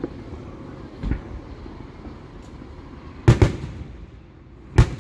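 Fireworks exploding: a dull boom about a second in, then a sharp double bang a little past three seconds and another loud bang near the end, over a low steady rumble.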